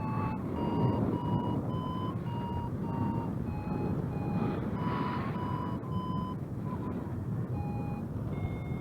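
Flight variometer beeping in short, quick beeps whose pitch climbs and falls as the rate of climb changes, the sign of the aircraft riding rising air. Near the end it changes to a steadier held tone, over wind rumble on the microphone.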